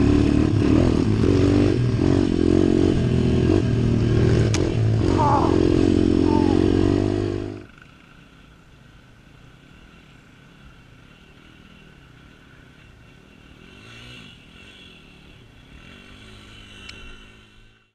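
Pit bike's single-cylinder four-stroke YX 140 engine running hard on a dirt trail, revving up and down. About seven and a half seconds in it cuts off abruptly, leaving only a faint, distant motorcycle engine.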